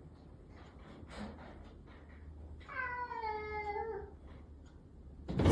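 A cat's single long meow, about a second and a half, sliding slightly down in pitch, starting about halfway through.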